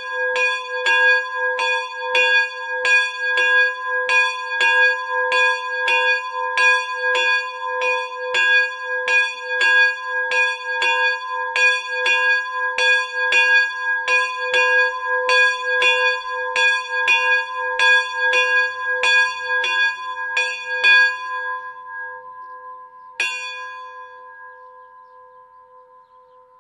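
A 35 kg bronze memorial bell, cast by Miklós Gombos in 2020, is swung by a hand-pulled rope, and its clapper strikes about twice a second. The strokes stop about three-quarters of the way through. One last stroke follows about two seconds later, and the tone then slowly dies away as the bell is rung down.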